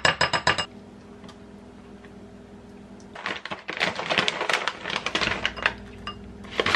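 A spoon clinks quickly against a ceramic bowl of oatmeal for about the first half-second. About three seconds in, a plastic food pouch crinkles for a couple of seconds as it is opened and handled, with a few more light clicks near the end.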